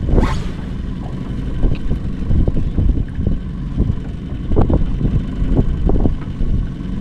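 Wind buffeting the microphone in a loud, unsteady low rumble, with a few soft thumps from handling in the boat.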